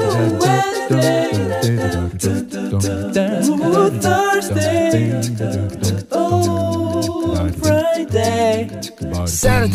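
Background music: voices singing a cappella, several pitched lines moving over a low bass pulse that comes and goes.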